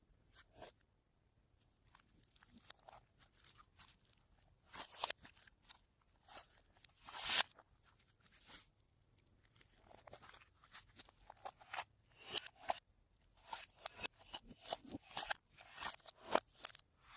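Slime being squished and mixed by hand, with irregular crackly clicks and pops. The loudest burst comes about seven seconds in, and the clicking grows quicker and denser near the end.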